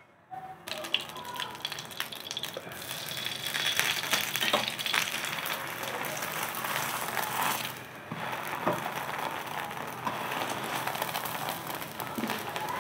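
Butter sizzling on a hot nonstick tawa as a kulcha toasts, starting about half a second in, with scattered light clicks and taps as the bread is handled on the pan.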